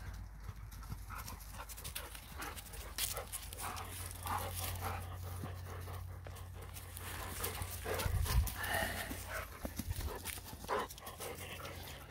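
A dog panting hard, with rustling and crunching in dry fallen leaves, and a louder low thumping about two-thirds of the way through.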